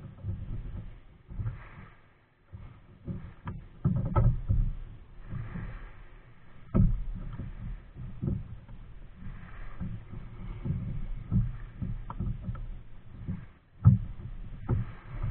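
Nelo Viper 55 racing kayak being paddled: water and paddle sounds over an irregular low rumble, with scattered sharp knocks.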